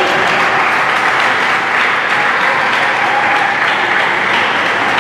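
Spectators applauding: a steady, dense clatter of many hands clapping.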